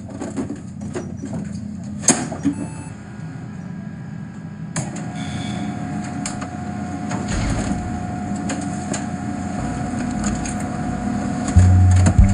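Brother laser printer being handled, its toner cartridge clicked into place with a sharp snap, then the printer starting up about five seconds in and running with a steady whir and a constant tone, with keyboard keys tapped alongside. A loud low thump near the end.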